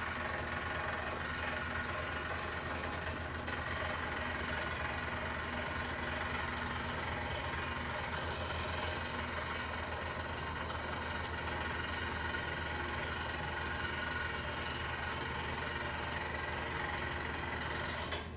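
Water-well drilling rig and its generator engine running steadily, a constant mechanical drone with a steady hum; the higher part of the noise drops away abruptly at the very end.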